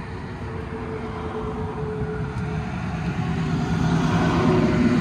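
Fuel pump running as gasoline is pumped into a pickup truck, a steady hum with a faint tone. A vehicle engine grows louder over the last two seconds.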